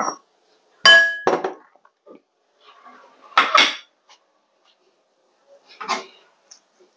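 Ceramic bowl and plate being set down and moved on a stone countertop: several separate knocks and clinks, the loudest about a second in with a short ring.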